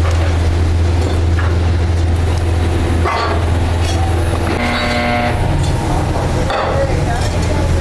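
Heavy workshop machinery running with a steady low hum, with scattered knocks and a brief higher-pitched tone about five seconds in.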